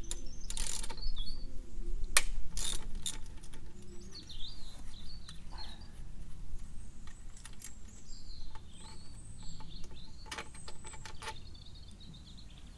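Clicks and metallic clinks of a socket ratchet undoing a motorcycle exhaust bracket bolt, in uneven bursts, loudest in the first few seconds and again near the end. Birds chirp faintly throughout.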